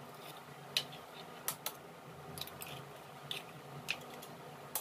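Eggs being cracked open over a bowl: about eight light, sharp clicks and taps at irregular intervals, from the shells being tapped with a steel spoon, broken apart and set down.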